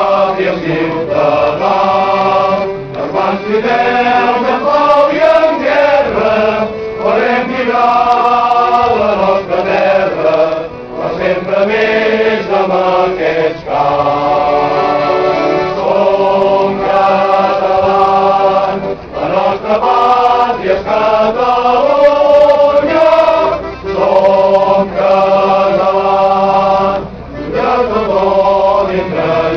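Choir singing a Catalan song in slow, held phrases, with short breaths between lines.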